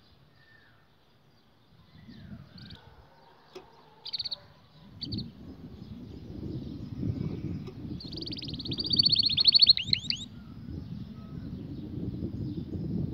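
Canary calling: two short high chirps, then about two seconds of a fast trill that ends in a few sweeping notes. A low rumble of background noise runs underneath from about five seconds in.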